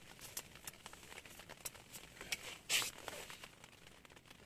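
Light rain ticking on the fabric of an ice-fishing tent, with a short rustle of a jacket sleeve about three seconds in.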